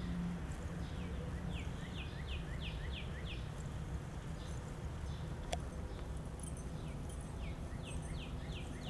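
A songbird sings a phrase of about seven quick, falling, whistled notes, twice, over a steady low outdoor rumble. A single sharp click comes about halfway through.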